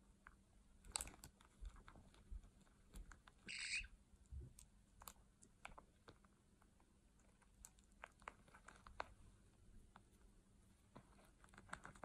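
Faint, irregular clicks and taps of white-bellied caiques' beaks on a plastic baby pacifier, with one short harsh call about three and a half seconds in.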